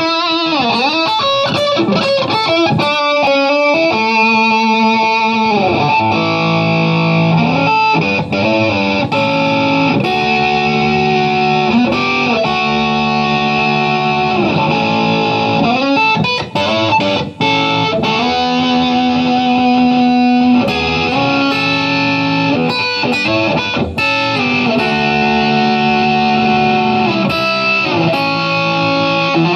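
Electric guitar played through a Roland GR-55 guitar synthesizer on its 'LP + STACK' patch, modelling a Les Paul into an amp stack, with an overdriven tone. It opens with wavering, bent notes over the first few seconds, then settles into long sustained notes and chords.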